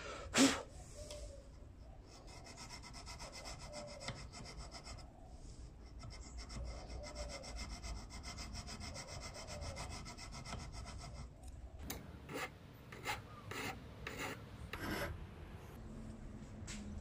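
Hand file scraping back and forth along the edge of a metal bracket clamped in a bench vise, with a sharp knock just after the start. Near the end, a few sharp clicks and knocks as the part is handled in the vise.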